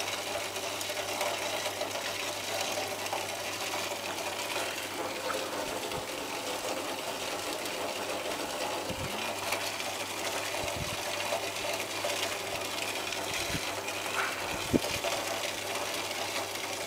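Steady running of a vacuum cleaner motor wired in series as the ballast for a microwave oven transformer, over a constant low hum. A few faint crackles come through in the middle.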